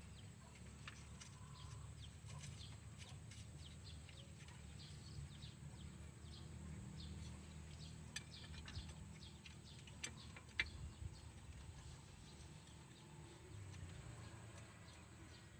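Faint outdoor background: a low rumble with scattered faint bird chirps. A few small sharp clicks come in the second half.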